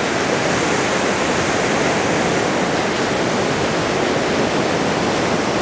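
Ocean surf breaking on a sandy beach: a steady, unbroken rush of wave noise.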